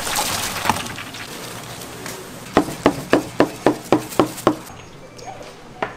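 A knife chopping on a cutting board: about eight quick, even strokes at roughly four a second in the middle of the clip, after some lighter clatter, with one more knock near the end.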